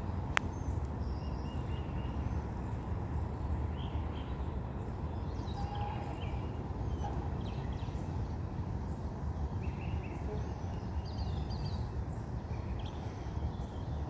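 Outdoor ambience: scattered short bird chirps and calls over a steady low rumble, with one sharp click just after the start.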